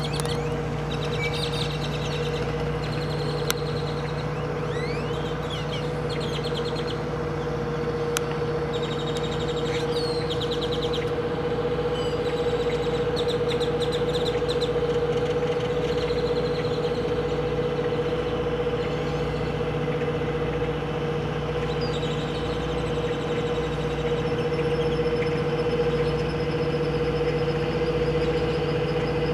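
Steady mechanical hum of an engine running at the dock, with a low rumble under it. Birds chirp and trill over it, mostly in the first half.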